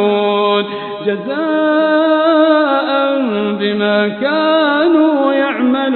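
A man's voice reciting the Quran in melodic chant, stretching syllables into long held notes that slide between pitches, with a short breath pause about a second in.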